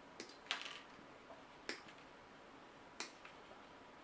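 Side cutters snipping plastic model-kit parts off the sprue: a few sharp, light clicks at uneven intervals.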